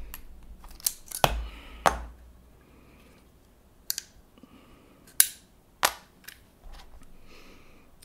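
Pin punch and small metal parts of an airsoft pistol frame being handled during disassembly: a string of sharp, irregular clicks and taps, the loudest about five seconds in.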